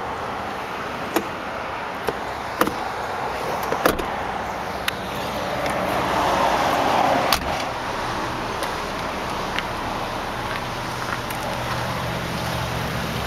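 Scattered clicks and knocks from the car's rear seat latch and seatback being handled, then a brief rush of noise ending in a sharp knock about seven seconds in, over a steady low background rumble.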